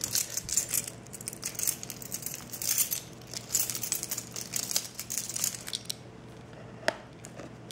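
Metal keys on a keyring jingling and clinking in a quick, irregular run, then a few light clicks as a key is put to the seal sticker of a small cardboard box.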